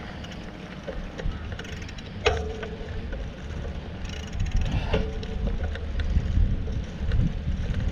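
Wind buffeting the microphone of a camera riding on a bicycle, with the bike rumbling and rattling over a bumpy dirt track. A few sharp knocks that ring briefly, about two and five seconds in.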